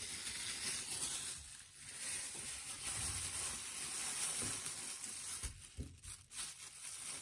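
Food sizzling in a frying pan: a steady frying hiss, with a few soft knocks from about three seconds in.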